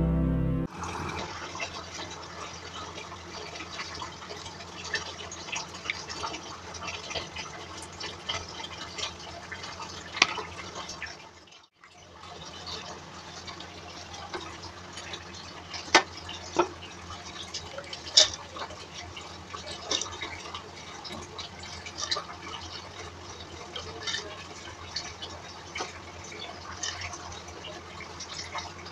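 Hands washing split lentils (dal) in a bowl of water: water sloshing and splashing as the grains are rubbed and stirred, with many small clicks and a few sharper splashes.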